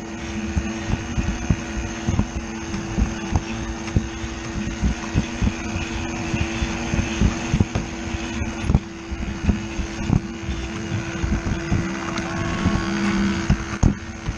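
Battery-powered Lego Duplo toy train running along plastic track: a steady motor hum with a constant rattle of irregular clicks and knocks from the wheels and cars over the track.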